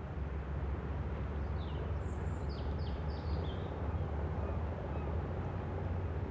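Outdoor ambience: a steady low rumble with a quick run of high, short bird chirps, about six calls, between one and a half and three and a half seconds in.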